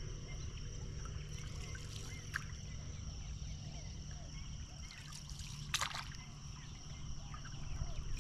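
Wooden paddle stroking through calm water, with water trickling and dripping off the blade, and one sharper splash a little before six seconds in. Steady insect trilling goes on underneath.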